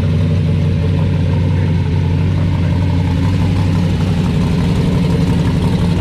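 Chevrolet Monte Carlo's engine idling loudly and steadily.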